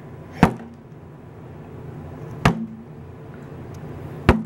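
Three sharp knocks about two seconds apart over a low steady room hum, the last one the loudest.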